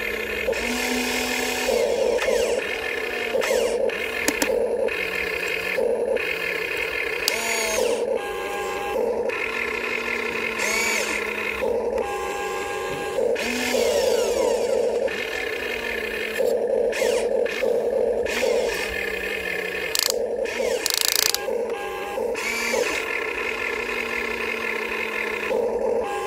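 RC excavator's electric motors and hydraulic pump whining, stopping and starting and shifting pitch every second or two as the controls are worked, with occasional clicks.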